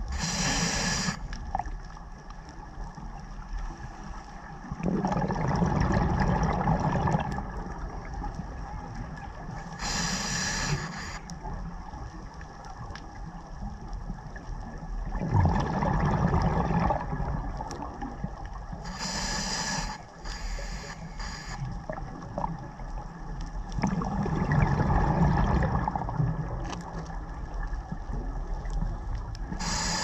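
Scuba diver breathing through a regulator underwater: a short hissing inhale about every nine to ten seconds, each followed a few seconds later by a longer rush of exhaled bubbles.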